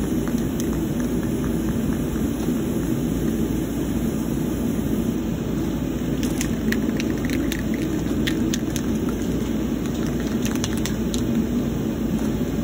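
A steady rushing, rumbling noise, with scattered faint ticks between about six and eleven seconds in.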